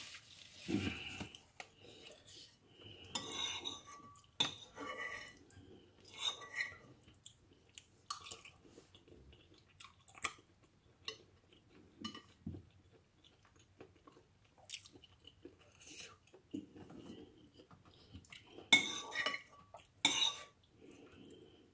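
Eating at the table: chewing, with a metal spoon and fork clinking and scraping against a ceramic bowl of noodles in scattered short clicks, the loudest clinks coming near the end.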